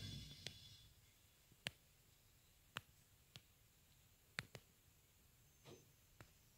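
The rush of a 20 kW field-kitchen gas burner dies away within the first second as its valve is turned down to a small flame. After that it is near silence, broken by about eight scattered sharp clicks.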